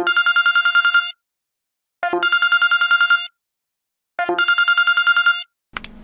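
A Samsung phone ringtone sounding as a trilling telephone-style ring: three rings of about a second each with short silences between them, each opening on a brief lower note. Near the end there is a click, then a low steady hum begins.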